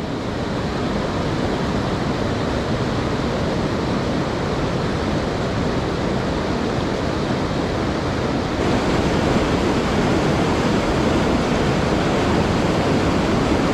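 Mountain stream rushing over boulders in whitewater rapids, a steady hiss of water; a little past halfway it turns abruptly louder, with a small cascade close by.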